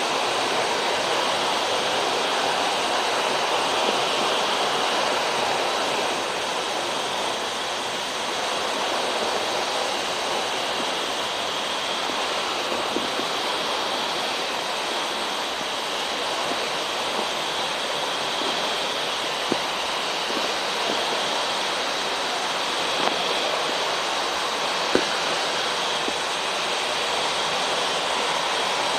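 Steady rush of flowing water, even and unbroken, with a few faint clicks along the way.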